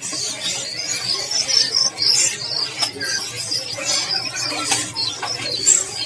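Many caged songbirds chirping and twittering at once, a dense chorus of overlapping high calls.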